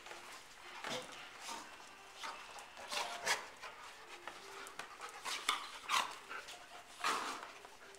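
Dogs play-fighting: a run of short, irregular huffs and scuffles, the loudest bursts about three and six seconds in.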